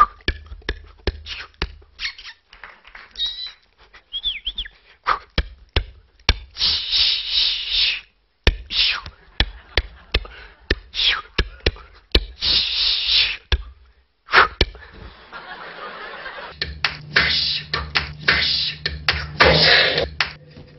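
Mouth-made sound effects by a clown-mime: a rapid run of clicks and pops, bursts of hissing and a few short sliding tones. A low steady hum joins near the end.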